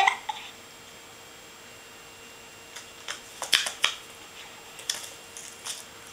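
Two kittens scuffling and pawing at each other on a fabric blanket: bursts of short scratchy clicks about three seconds in and again near five seconds.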